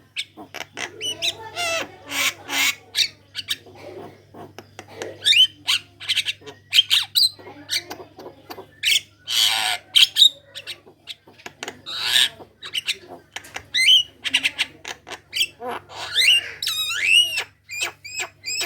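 Javan myna singing in a continuous chatter of harsh squawks, clicks and short calls, with looping up-and-down whistles near the end.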